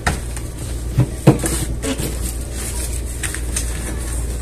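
Handling sounds at an office desk: two sharp knocks about a second in, the second the loudest, among lighter knocks and paper rustling, over a steady low hum.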